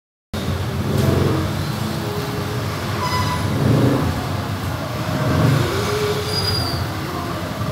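Steady low rumble of a motor vehicle, with a hiss over it. It cuts in abruptly just after the start.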